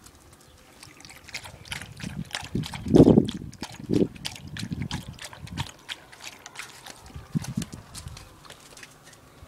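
A dog lapping water from a stainless steel bowl: a run of quick wet laps and clicks, with two louder thumps about three and four seconds in.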